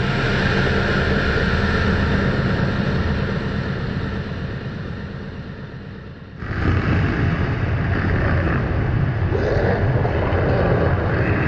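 Distorted, rumbling industrial drone sound effect that fades out over about six seconds, then a second distorted rumbling effect starts suddenly.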